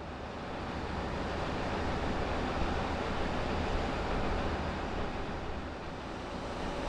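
Steady wind noise on the microphone over the low rumble of a 1941 GE 80-ton diesel switcher locomotive idling, growing a little louder over the first two seconds.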